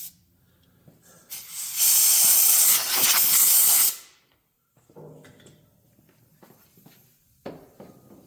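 Aerosol can of brake cleaner spraying into a freshly tapped bolt hole, a loud steady hiss lasting about two and a half seconds with a short dip in the middle, flushing out the hole before the thread insert goes in. A few light clicks and knocks follow.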